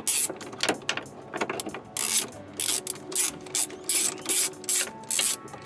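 Hand socket ratchet clicking in short bursts, about two a second, as it is swung back and forth on a long extension. It is backing off a 13 mm rear strut mount nut.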